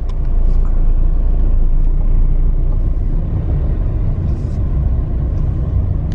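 A car driving along a road: a steady low rumble of engine and road noise, heard from inside the moving car.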